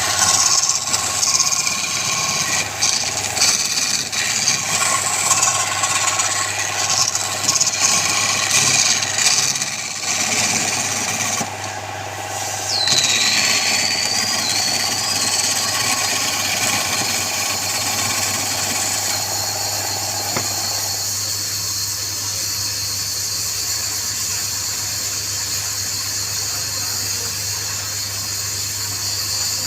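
Wood lathe running with a steady hum, a turning tool cutting the spinning wood in an uneven scraping rush for about the first twelve seconds. About thirteen seconds in there is a brief high squeal, then the lathe runs on evenly.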